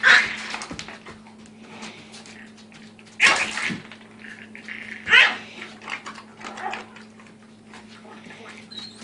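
A dog barking and yipping in short, sharp outbursts: one just after the start, a louder one about three seconds in, another about five seconds in and a fainter one near seven seconds.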